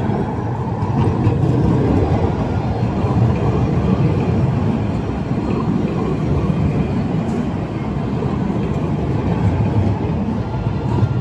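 Alstom Citadis low-floor tram running slowly past at close range on a curved street track: a steady rumble of steel wheels on rails, with a faint whine over it.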